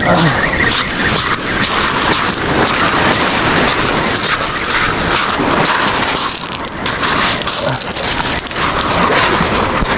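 Sea surf washing over rocks: a loud, steady rushing with crackling.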